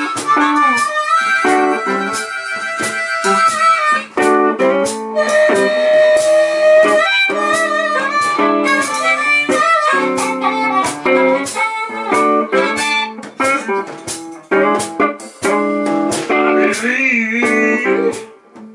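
Blues harmonica solo played with the harp cupped against a handheld microphone. Long held notes alternate with quick chopped rhythmic chords, and a warbling bend comes near the end.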